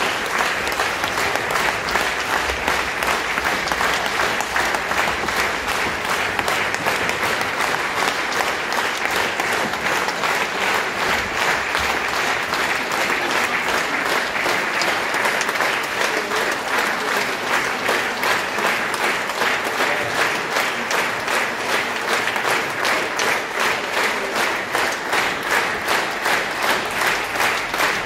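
A large theatre audience applauding, the clapping settling into a steady unison rhythm about halfway through.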